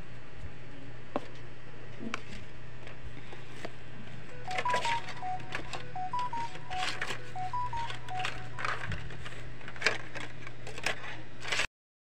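Plastic ceiling-fan parts being handled, with scattered clicks and knocks over a steady low hum. In the middle, a short electronic beeping tune plays, a simple phrase of a few tones repeated three times. The sound cuts off abruptly near the end.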